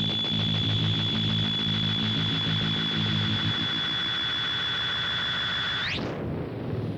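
Circuit-bent Waldman flanger pedal running into delay, self-oscillating as a noise drone: a steady high-pitched whistle over a buzzing, hissy wash with a low hum underneath. About six seconds in the whistle sweeps sharply upward and gives way to a duller rumbling noise.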